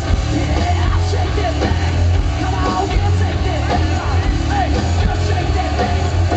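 Live rock band playing loud through a festival PA: distorted electric guitars, a heavy bass and drums, with shouted, yelled vocals over the top, heard from within the crowd.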